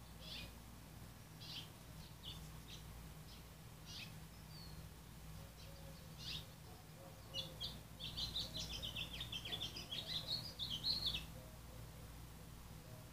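Small birds chirping in short scattered calls, then about seven seconds in a rapid run of chattering calls that lasts about four seconds.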